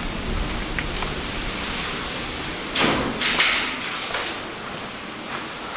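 Steady rushing noise of wind on the microphone, with a few louder gusty rushes about three to four seconds in.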